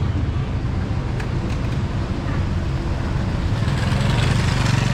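Street traffic noise: a vehicle engine's low, steady rumble that grows louder near the end.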